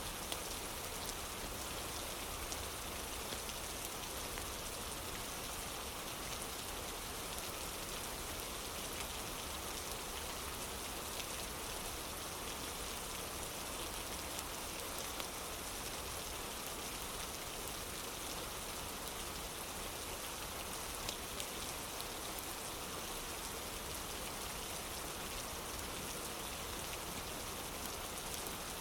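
Steady rain falling on a wooden porch: an even hiss of rain with faint, scattered drop ticks.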